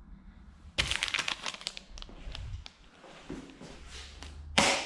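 A clear plastic bag holding an engine gasket set crinkling as it is picked up and handled. There is a dense flurry of crackles about a second in, a few scattered ones after it, and a short, louder rustle near the end.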